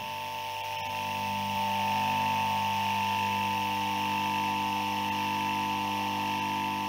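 Electric motor of a Steinberg SWP 600i submersible pump running steadily: a low electrical hum with a high, steady whine over it.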